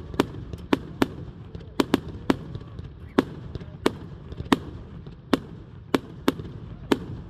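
Fireworks going off in a string of sharp cracks, about a dozen at irregular intervals, over a low rumble.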